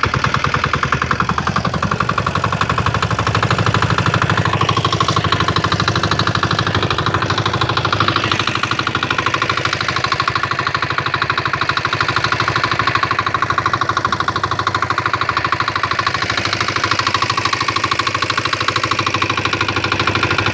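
Small Chinese single-cylinder diesel boat engine running steadily under way, with a loud, rapid, even beat of exhaust pulses.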